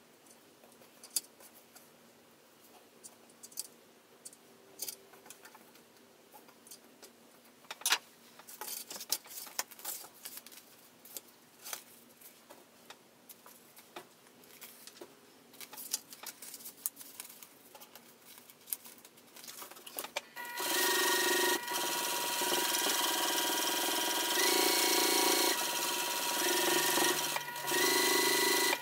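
Juki sewing machine stitching, starting about two-thirds of the way in and running steadily in a few stretches with brief breaks. Before that come light clicks and rustles of hands handling the fabric pieces and clips.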